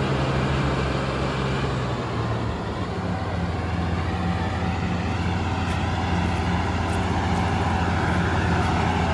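Heavy farm diesel engine running steadily; about two and a half seconds in, its note drops lower and holds there.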